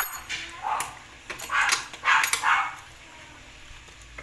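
A dog barking: a quick run of about five short barks in the first two and a half seconds, then a pause.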